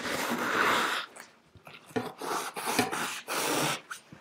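A long, sharpened kitchen knife sawing through a slab of upholstery foam: a rough, rasping noise in one long stroke, then three or four shorter strokes.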